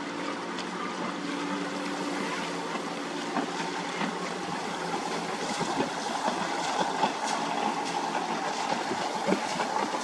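A passing boat's engine hums steadily and fades away over the first few seconds. River water then laps and splashes with small irregular slaps.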